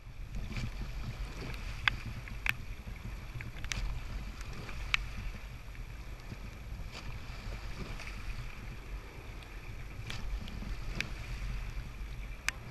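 A rowing eight paddling at a steady light stroke: water rushing along the hull and blades with a low wind rumble on the microphone, broken every second or few by short sharp clicks of the oars turning in their gates.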